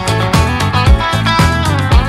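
Background music: a guitar-led track with a steady beat, about two beats a second.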